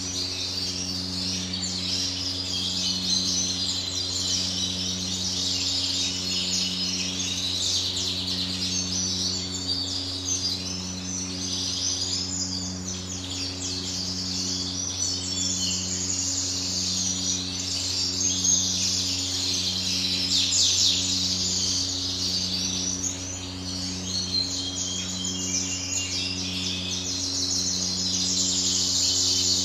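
Many caged songbirds chirping and singing over one another in a dense, continuous twitter. Beneath it runs a steady low machine hum that pulses about once a second.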